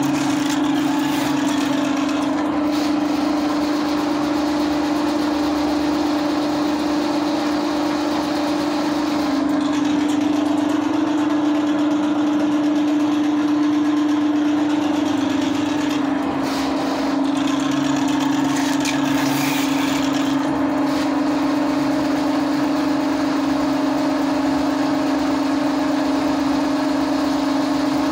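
Electric drain-cleaning machine running steadily, its motor spinning a spiral snake cable down a clogged floor drain. The hum rises slightly in pitch for a few seconds near the middle, then drops back.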